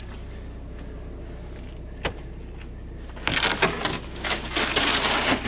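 Panels and a latch of a wooden portable panel cabin being handled: a single click about two seconds in, then from about three seconds in a run of scraping, rattling and clicks, over a steady low hum.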